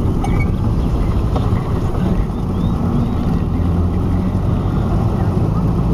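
GAZ-M20 Pobeda driving at road speed: a steady low rumble of drivetrain, tyres and wind, with a steady low hum that comes in clearer about halfway through. This is the rear-axle noise that the owner describes as a cyclic, speed-dependent drone that persists even when coasting.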